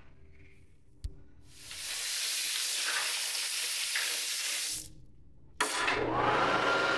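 Sink faucet running while hands are washed under it, for about three seconds. After a short pause a push-button electric hand dryer starts with a sudden rush of air and a steady motor whine that rises slightly in pitch as it comes up to speed, then holds.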